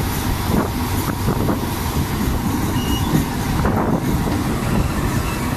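Train running along the track, heard from an open window: a steady rush of wheel-on-rail noise with wind buffeting, and a few faint clacks.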